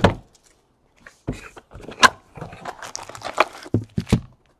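A cardboard trading-card box being handled and opened on a table: scattered taps, scrapes and rustles, with one sharper click about two seconds in.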